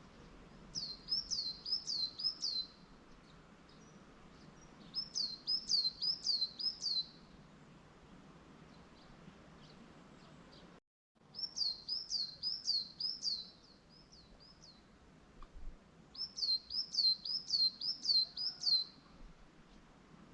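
A songbird singing a short phrase of four or five quick, repeated high notes, four times at intervals of about four seconds, over a faint steady background hiss. The sound cuts out completely for a moment near the middle.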